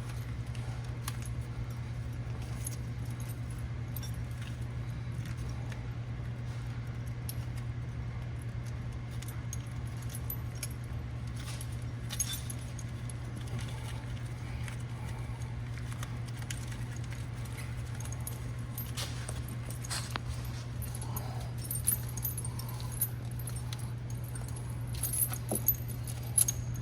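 Steel tire chain links clinking now and then as the chains are handled and hooked together, the clinks coming more often near the end, over a steady low hum.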